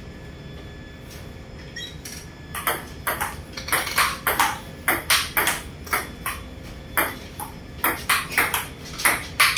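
Table tennis rally: the ball clicking off the paddles and bouncing on the table in a quick, even back-and-forth of sharp clicks that starts about two and a half seconds in.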